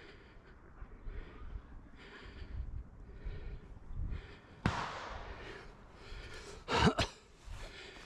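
Footsteps of someone walking through dry brush and leaf litter, with breathing. There is a sharp snap a little past halfway and a short loud burst about seven seconds in.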